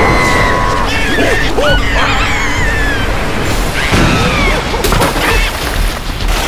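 Cartoon soundtrack of churning, splashing water under music, with short high squealing cartoon voice cries, the loudest an arching shout about four seconds in.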